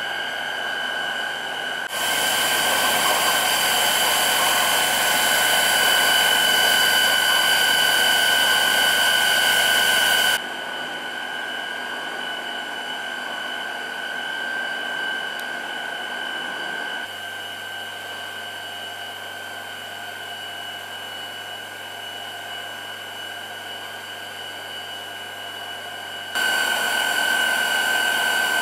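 Machinery of a kinetic sculpture of pipes and liquid-filled tubes running: a steady hiss and whir with two high whining tones held over it. It jumps abruptly in loudness and tone a few times, louder from about two seconds in, dropping about ten seconds in and rising again near the end.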